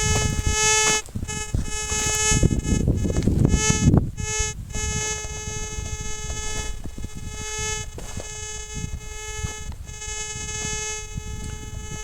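Metal detector's audio tone: a steady buzzing tone that swells and breaks up several times in the first four seconds, then holds steady, over low rumbling noise.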